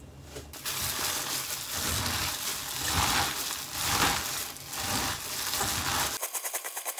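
A plastic-gloved hand kneading and squishing minced pork, chives and cabbage for gyoza filling in a stainless steel bowl: wet squelching and glove crinkling in strokes about once a second. It begins about half a second in, and near the end it turns into a quicker, thinner rustle.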